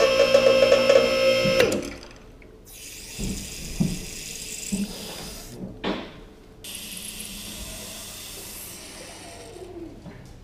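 A two-post car hoist's electric hydraulic pump motor whines steadily for under two seconds, then stops. The lowering valve then lets the truck down with a hiss of hydraulic fluid in two stretches, and a few knocks in between.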